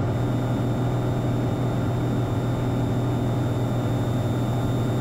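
Steady drone of a Piper Malibu Mirage's turbocharged six-cylinder piston engine and propeller heard inside the cabin in flight, an even rushing noise over a constant low hum.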